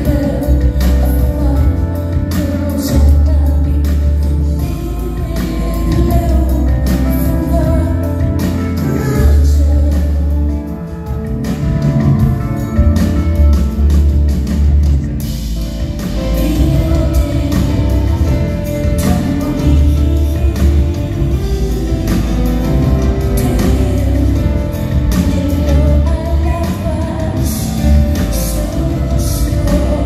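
Live band music: a woman singing over grand piano, electric bass and drums, with a strong pulsing bass line.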